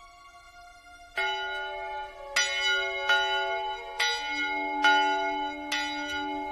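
Church bells ringing, several bells of different pitches struck one after another about once a second from about a second in, each note ringing on under the next.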